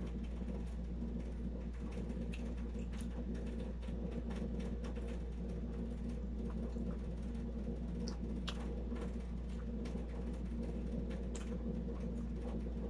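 Eating sounds: chewing and scattered soft clicks of bare hands picking at rice and lato seaweed on a banana leaf, over a steady low hum.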